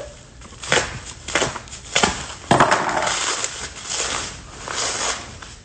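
Paper wrapping being crumpled and torn off a package by hand: a few sharp rips and a longer stretch of crinkling in the middle.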